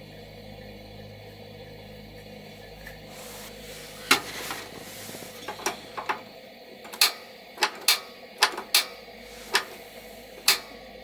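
A series of about ten sharp knocks and clicks at uneven intervals over a steady low hum.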